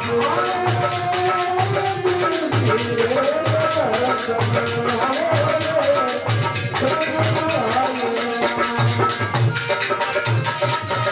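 Rajasthani folk bhajan performed live: a sung melody with gliding ornaments over harmonium, a hand drum beating a steady rhythm of about two to three strokes a second, and a constant rattling percussion.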